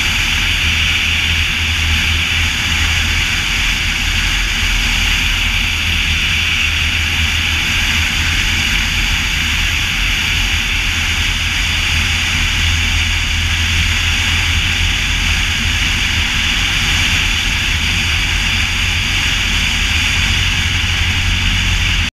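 Cessna 152's four-cylinder Lycoming engine and propeller droning steadily in flight, under a heavy rush of wind over the wing-mounted camera.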